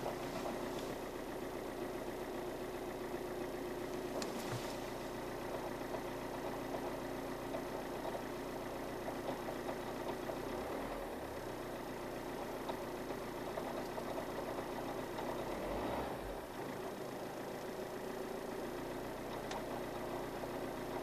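Alfa Romeo 159 JTDM diesel engine idling with the clutch pedal pressed, the rattle/chattering it has developed gone while the clutch is down. The sound shifts briefly about halfway through and again about 16 seconds in, a little quieter after that.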